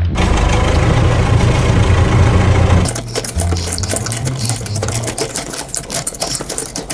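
A fast, steady mechanical rattle like a small engine running, loudest for about the first three seconds. It then drops and breaks into rapid clicks.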